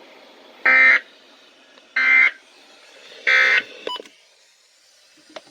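Three short bursts of weather-radio SAME data tones, each about a third of a second long and a little over a second apart, the burst pattern of an end-of-message signal closing the alert. A couple of faint clicks follow.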